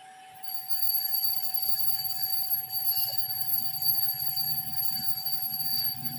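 A steady high-pitched electronic whine switches on about half a second in and holds, over a low hum and a fainter steady mid tone.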